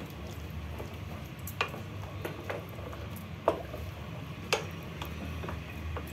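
Wooden spatula stirring thin gravy in a metal pot, knocking against the pot's side about six times, sharpest about three and a half and four and a half seconds in, over a steady low hum.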